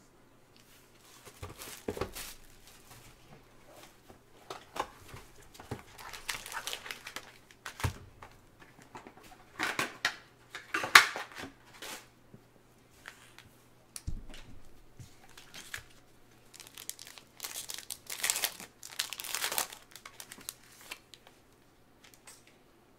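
Crinkling and tearing of trading-card packaging: a football card box is unwrapped and its foil packs are torn open. The rustles come in irregular bursts, the loudest about eleven seconds in.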